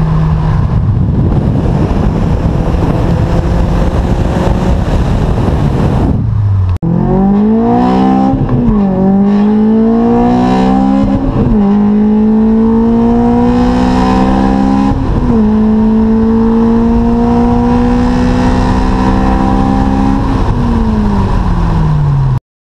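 Honda S2000's 2.2-litre inline-four, breathing through an Invidia cat-back exhaust and test pipe, holds steady revs for about six seconds, then the revs drop. It then accelerates hard through the gears: the pitch climbs, falls sharply at each of three upshifts, and climbs again, with each gear taking longer. Near the end the revs fall away and the sound cuts off abruptly.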